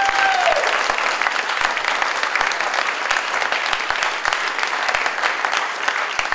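A room full of people applauding, with dense, steady clapping. A held note fades out just after it begins.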